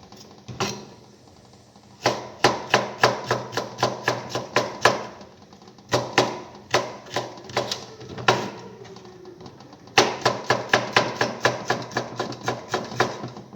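Knife chopping garlic on a cutting board: three runs of quick, steady strikes, about four a second, separated by short pauses.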